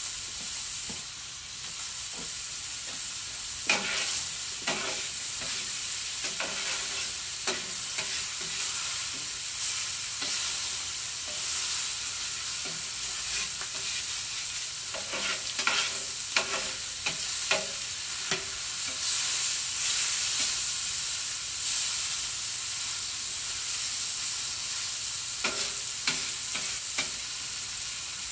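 Chuck steaks sizzling steadily in butter on a thick griddle, with scattered clicks and scrapes of metal utensils against the griddle as the steaks are turned and moved.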